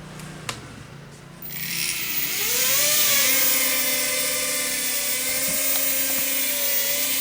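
A click, then a small RC helicopter's electric motor and rotor spin up about a second and a half in. The whine rises in pitch and then holds steady with an airy hiss above it.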